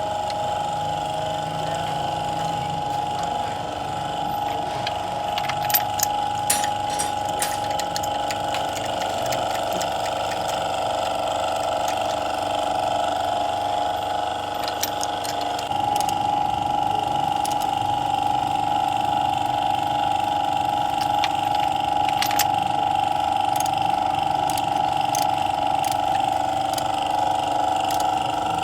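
A machine running steadily with a strong droning tone; about 16 seconds in the tone steps slightly higher and louder. Sharp clicks and metallic ticks come over it around 6 seconds in and again around 22 seconds.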